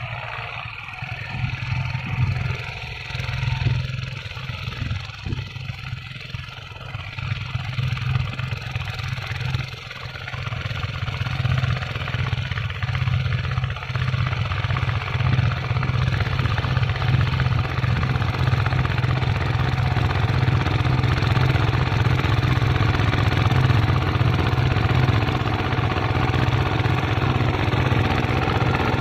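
Two-wheel walking tractor's single-cylinder diesel engine running steadily under load while ploughing soil. It grows louder over the first dozen seconds as the tractor comes closer.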